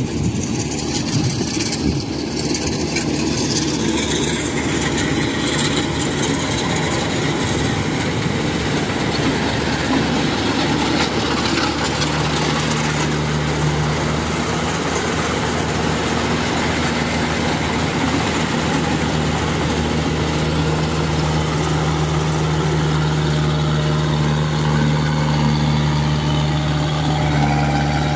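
Kubota tracked rice combine harvester's diesel engine running steadily while it cuts rice, with the machine's drive and threshing noise. About halfway through a steady low hum grows stronger and holds.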